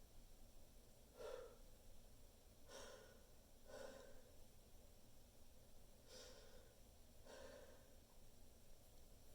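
Faint breathing during a pre-sneeze buildup: five soft breaths, about one to one and a half seconds apart, with a longer gap in the middle, and no sneeze.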